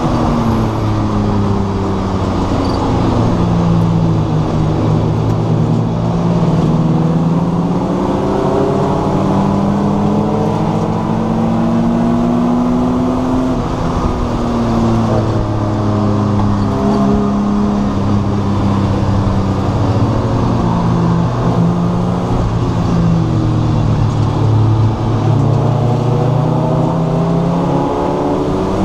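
Race car engine heard from inside the stripped, caged cabin, running hard around a road course: its pitch climbs and drops over and over with acceleration, gear changes and lifting for corners.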